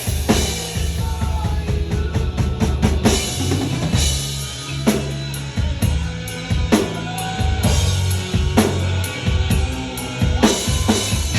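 Drum kit played over a backing track with sustained bass and a melody line: steady drum strokes with strong accents about every two seconds, and a quick run of hits about two to three seconds in.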